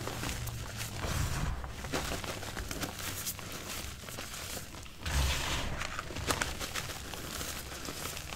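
Hands crushing and crumbling lumps of reformed gym chalk into loose chalk powder: irregular dry crunching and crackling with soft dull thumps, the heaviest about five seconds in.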